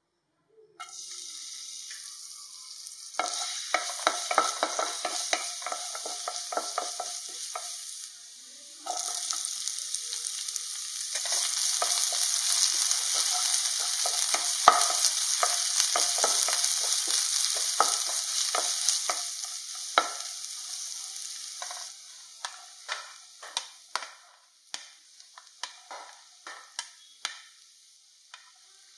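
Hot oil sizzling in a non-stick wok as sliced shallots and garlic fry, with repeated strokes of a spatula stirring and scraping the pan. The sizzle starts about a second in, is loudest in the middle, and dies down after about 22 s, leaving mostly separate spatula scrapes and taps.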